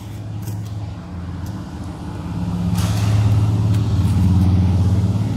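Low, steady engine-like drone that grows louder from about halfway through, with a brief rustle near the middle.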